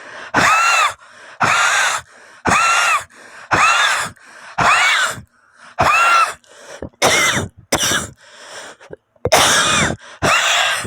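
A woman coughing in a run of about ten short coughs, roughly one a second, with a brief pause near the end before the last two. Each cough carries a rasping, wheezy pitched tone, the 'metallic' cough that she puts down to inhaling volatile organic compound fumes.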